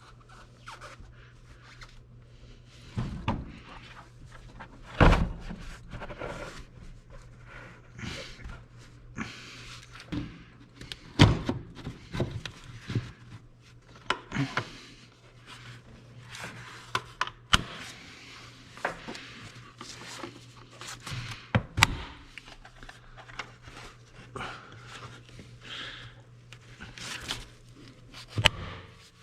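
Irregular knocks, clunks and scraping from hand work on a skid steer during a filter change, several sharp thuds standing out, over a steady low hum.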